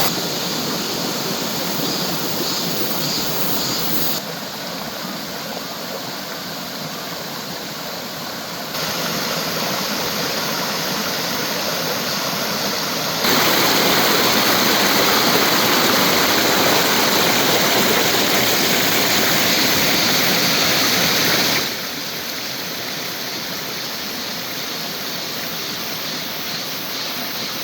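Mountain valley stream rushing over rocks in a steady wash of water noise. Its loudness jumps abruptly up or down four times as one stretch of water gives way to another.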